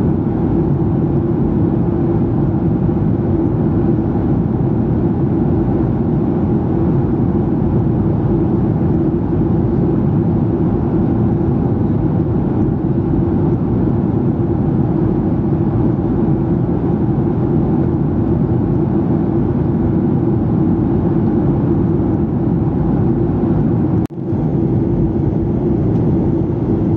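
Steady in-flight cabin drone of a Boeing 737-800, its CFM56-7B engines and the rushing airflow heard from a window seat over the wing, with a brief dropout near the end.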